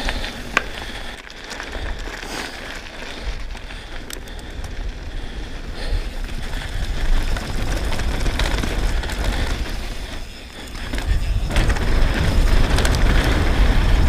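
Downhill mountain bike ridden fast on a dirt trail: steady tyre and trail noise with scattered sharp rattles and knocks from the bike. Low wind rumble on the helmet camera's microphone, heavier over the last few seconds.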